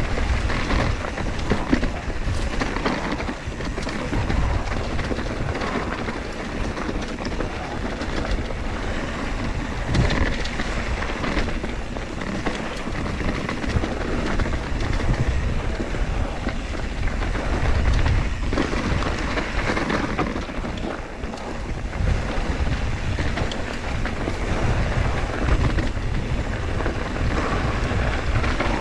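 Mountain bike rolling fast down dirt singletrack: steady rumble of tyres on dirt with rattles and knocks from the bike over bumps, and wind buffeting the camera microphone.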